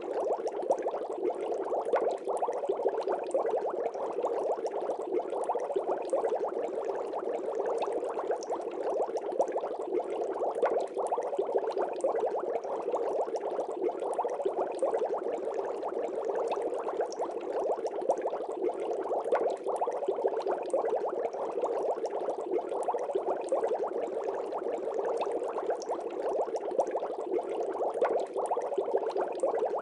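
Aquarium water bubbling steadily: a dense, continuous stream of small bubble pops and gurgles that keeps an even level throughout.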